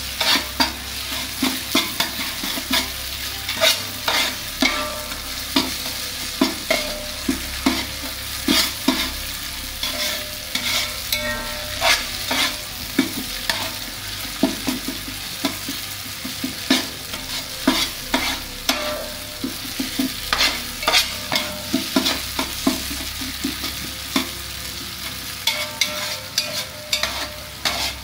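Long metal spatula scraping and knocking against the bottom and sides of a large aluminium pot, stirring chopped onions and whole spices as they fry, over a steady sizzle. The scrapes come irregularly, about one or two a second.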